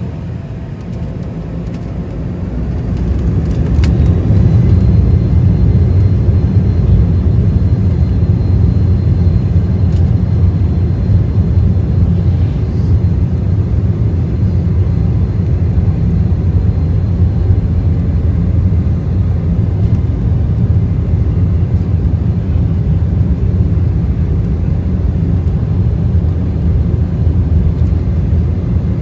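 Embraer 190's twin GE CF34 turbofan engines, heard from inside the cabin, spooling up to takeoff thrust over the first few seconds. A loud, steady low rumble then holds through the takeoff roll, with a thin high engine whine that comes in about four seconds in.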